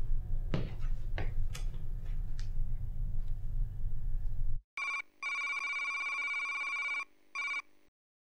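Low rumble with a few light knocks and rustles. About four and a half seconds in it cuts off abruptly, and an electronic phone-like ringing tone sounds in three parts, a short beep, a long steady tone of nearly two seconds and another short beep, then stops.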